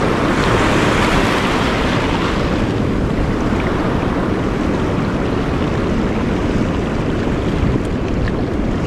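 Small waves washing over shore rocks, with strong wind buffeting the microphone as a steady low rumble. A louder wash of surf swells about a second in.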